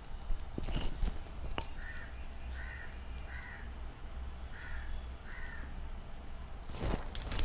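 Guinea pigs chewing greens close to a clip-on microphone, with scattered crunchy clicks and rustling of a plastic sheet, loudest just before the end as a hand strokes one. Five short calls sound faintly in the background in the middle, three then two.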